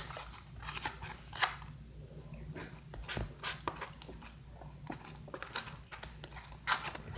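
Spoon stirring and scraping a glue, baking soda and contact lens solution slime mixture on a plate: irregular small clicks and scrapes, with a few sharper clicks.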